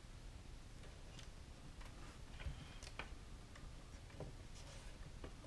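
Faint, irregular small clicks and taps of tweezers and fingertips on a plastic scale-model hull as masking pieces are pressed into place, over quiet room hiss.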